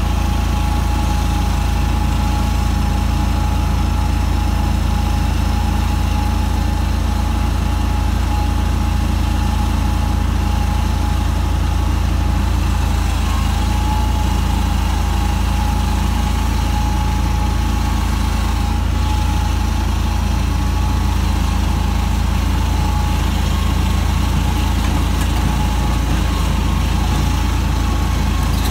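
Great Dane Chariot stand-on mower's engine running steadily, heard close from on board, with a thin steady whine over a low rumble.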